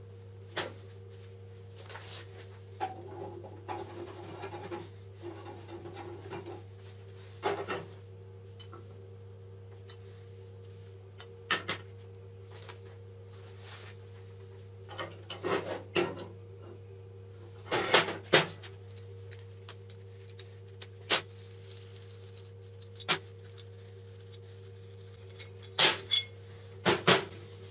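Steel vise parts handled and fitted together by gloved hands: scattered metal clinks and knocks, the loudest about two-thirds of the way through and near the end. A brief rustle a few seconds in, and a steady low hum underneath.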